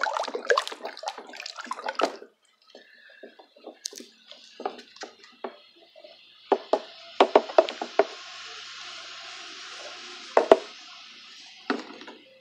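Wooden stick stirring a liquid soap mixture in a plastic basin: sloshing, with irregular knocks of the stick against the basin. A steady faint hiss runs through the second half.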